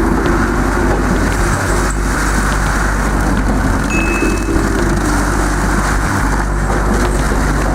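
Heavy machinery engine running steadily under a dense rush of mechanical noise, with a brief high whine about four seconds in.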